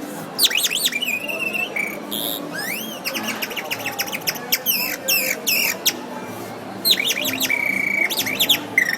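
A man imitating songbird calls with his mouth: a quick run of high chirps, fast trills and steep rising and falling sweeps, with a couple of short held notes.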